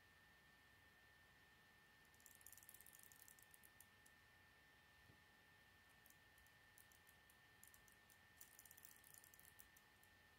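Faint clicking and rattling of plastic K'nex pieces being handled, in two quick flurries about two seconds in and near the end, with a few single clicks between.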